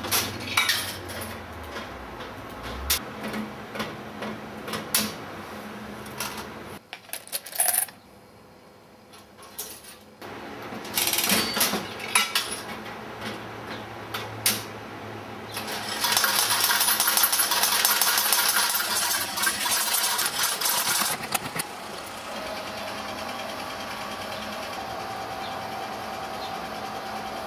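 Bally slot machine worked by its handle, its mechanism running with a string of mechanical clicks and clunks, a quieter gap of a few seconds, then more clicks. About halfway through comes roughly five seconds of dense, rapid metallic clatter, followed by a steady hum.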